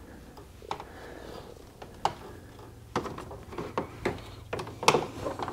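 Plastic upper grille clicking and knocking against the plastic bumper cover as it is pushed in to snap its tabs into the bumper's tabs: a scatter of sharp, irregular clicks, the loudest near the end.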